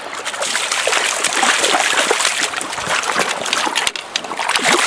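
Splashing and sloshing in shallow stream water as a hooked brown trout is brought to the landing net. It is an irregular run of many small splashes.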